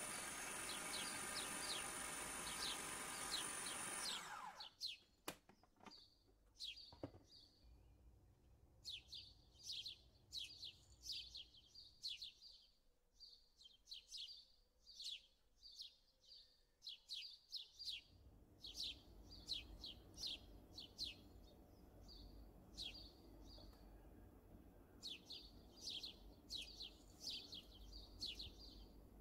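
Kenwood food processor's motor running at speed as it chops molokhia leaves, stopping abruptly about four seconds in. After that, small birds chirp quickly and repeatedly, several chirps a second with short pauses.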